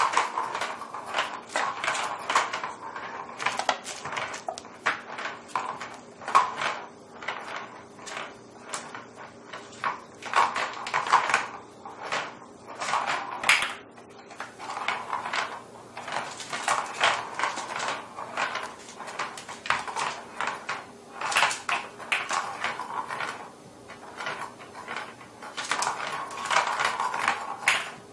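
Plastic balls rolling and rattling around a plastic cat track toy as kittens bat at them: an irregular clatter of clicks and knocks with short runs of rolling noise.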